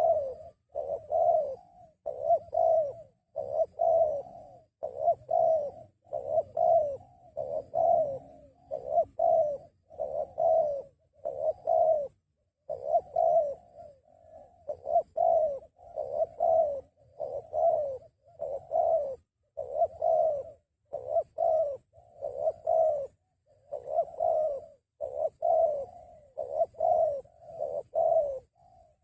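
Spotted doves (tekukur) cooing close by: deep, repeated coo notes, a bit more than one a second, going on with only a short break about halfway through.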